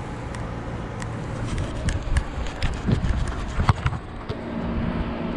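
Footsteps of a player running on artificial turf, picked up close by a body-worn camera: a run of thumps at about three a second through the middle, over a steady low background noise.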